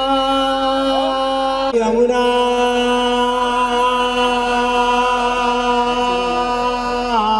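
A voice chanting a wedding mantra, holding one long drawn-out note that steps down a little in pitch about two seconds in and then holds steady until near the end.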